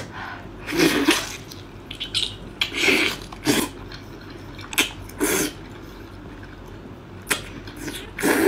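Wet slurping and chewing as octopus tentacles are sucked into the mouth and eaten, in a string of short wet bursts about a second apart.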